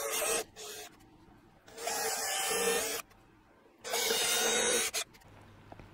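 Cordless drill with a 3 mm bit and countersink bit drilling and countersinking screw holes in a fiberglass shelf. The motor runs in short bursts: one stops just after the start, then a brief blip, then two runs of about a second each with pauses between.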